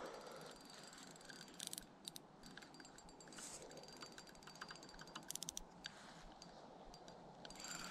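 Spinning fishing reel being worked by hand: faint short runs of rapid mechanical clicking from the reel, about two seconds in and again about five seconds in.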